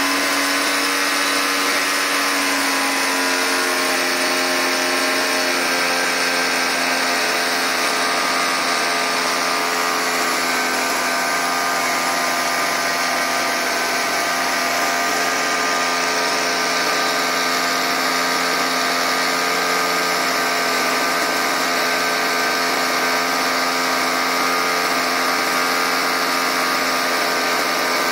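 A 43cc two-stroke brush-cutter engine, the power plant of a model ship, running steadily; its pitch shifts slightly in the first few seconds and then holds.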